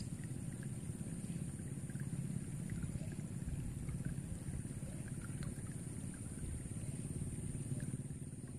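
A steady low rumble under a constant high insect drone, with scattered short chirps.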